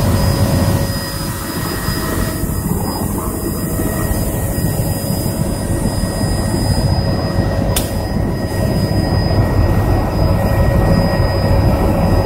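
Helicopter turbine engine and rotor running, a steady high whine over a dense low rumble.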